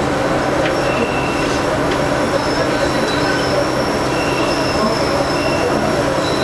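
Light rail car running along the track, heard from inside the car: a steady rumble and rush, with short, faint high-pitched whines coming and going.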